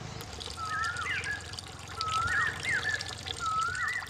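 A thin stream of water trickles from a miniature toy hand pump's spout into a small metal bucket. Over it, a bird call of two curved whistled notes repeats three times, about every second and a half.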